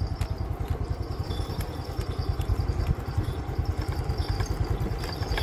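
Motorbike engine running at low throttle while riding slowly along a rough dirt road: a steady low putter with a few light rattles.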